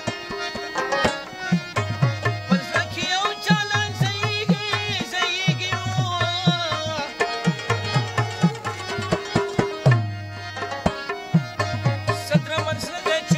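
Live Pashto folk music: a tabla keeps a steady rhythm, its low bass-drum strokes bending in pitch, under a harmonium and a man singing with a wavering vibrato.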